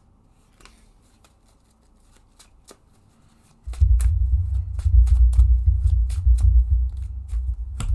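A deck of Magic: The Gathering cards being shuffled by hand after a tutor search: a quick run of card clicks. A loud low rumble joins about four seconds in.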